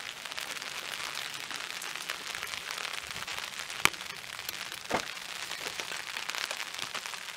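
Steady rain falling, heard as an even hiss, with two sharp clicks near the middle.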